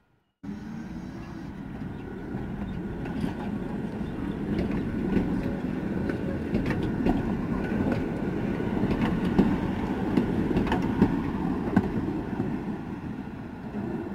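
Tatra T6A5 tram passing close by on curved track: a steady wheel-on-rail rumble with scattered sharp clacks from the wheels over the rails, starting abruptly about half a second in and easing a little near the end.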